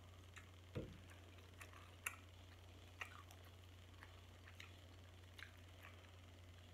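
Quiet eating sounds: faint, scattered clicks and cracks from picking meat out of snow crab shells by hand and chewing, with a soft thump about a second in and a sharper click near two seconds, over a steady low hum.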